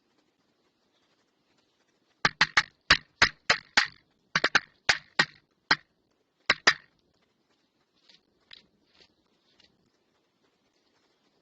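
A bird striking a security camera's housing: a rapid, irregular series of about a dozen sharp knocks over four or five seconds, then a few faint taps.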